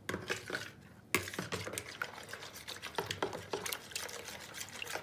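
A metal spoon stirring milk, warm water and dry yeast in a plastic bowl to dissolve the yeast, with repeated clicks and scrapes of the spoon against the bowl and some light sloshing. The sharpest click comes about a second in.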